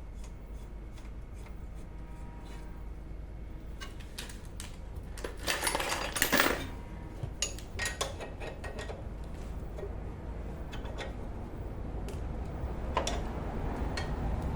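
Metal hand tools clinking and tapping against steel suspension parts during bolt work on a car's front suspension, with a louder burst of metallic rattling about six seconds in.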